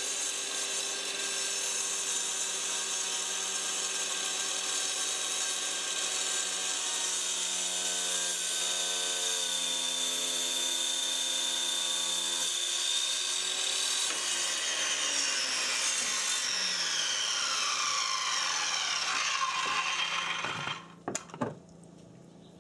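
Porter-Cable circular saw with a diamond blade cutting through a granite countertop slab, wet, with water running onto the blade: a steady, loud, high whine. Its pitch falls over the last several seconds, and it stops sharply near the end, followed by a couple of knocks.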